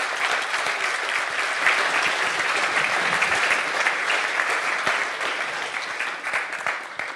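Audience applauding: dense, steady clapping from many people that thins out and fades near the end.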